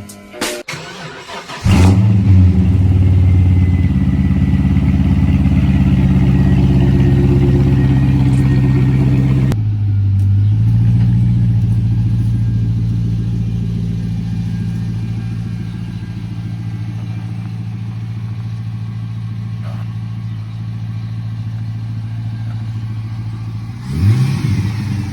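Holden SV8 Commodore's V8 starting about two seconds in, after a moment of music, and running at a high idle. Around ten seconds in it drops to a lower steady idle, and near the end there is a short blip of the throttle.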